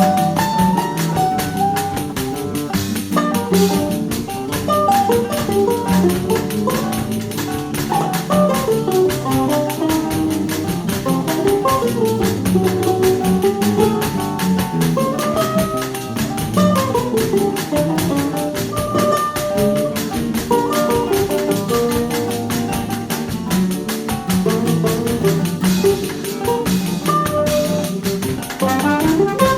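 Choro ensemble playing: a melody over guitar accompaniment and a tuba bass line, with pandeiro and drum kit keeping a fast steady pulse.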